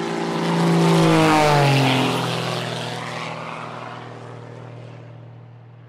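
Airplane flying past: the roar swells to a peak about a second in, its engine tones drop in pitch as it passes, then it slowly fades away.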